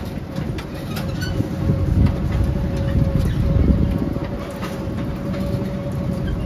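Miniature zoo train running, heard from on board: a steady low rumble with a faint steady hum above it.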